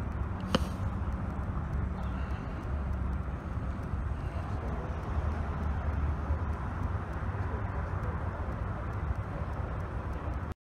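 Street background picked up by a handheld phone: a steady low rumble of traffic and wind on the microphone, with one sharp click of the phone being handled about half a second in.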